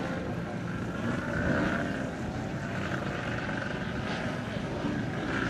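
Radio-controlled aerobatic model plane's engine and propeller buzzing overhead, the engine note wavering up and down as it manoeuvres.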